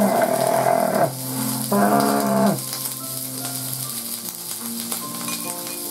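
Meat sizzling on a hot tabletop grill plate, a steady hiss. Two long, low pitched tones are louder over it, one in the first second and another about two seconds in.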